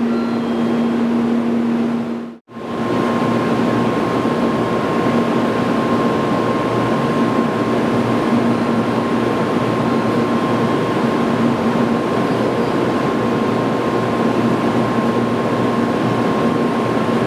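Steady hum and rushing noise of a stationary N700-series Shinkansen train at a station platform, with its onboard equipment running. The sound drops out for a moment about two seconds in, then carries on with a faint steady high tone.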